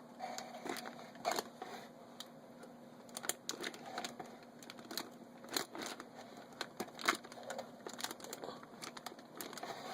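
Scattered small plastic clicks and taps of a RAM module being handled, seated and pressed down into a motherboard memory slot until its retention clips snap in, over a faint steady hum.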